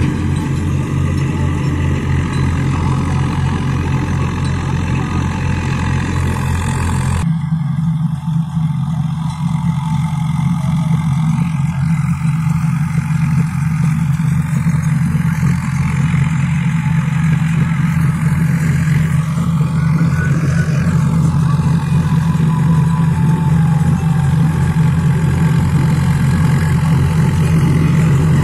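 Swaraj 744 tractor's three-cylinder diesel engine running steadily under load as it pulls a PTO-driven straw reaper through wheat stubble. The sound shifts abruptly about seven seconds in and grows gradually louder as the tractor comes closer.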